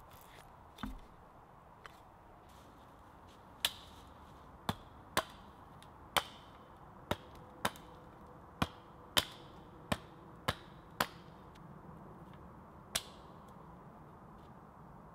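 Husqvarna hatchet chopping the limbs off a thin wooden pole: about a dozen sharp strokes at uneven intervals, starting about three and a half seconds in.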